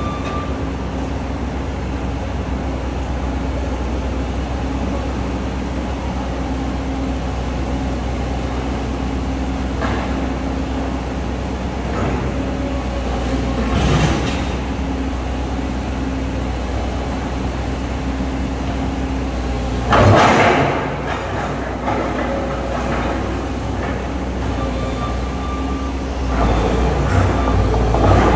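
Komatsu PC200 hydraulic excavator's diesel engine running steadily under work, with a thin whine at times. Several crashes and clanks of sheet metal break in as it tears at the old structure, the loudest about two-thirds of the way through.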